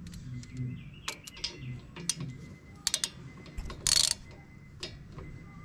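Irregular metallic clicks and clinks of a wrench working the bolts of a front brake caliper during reassembly, with a louder metallic rattle about four seconds in.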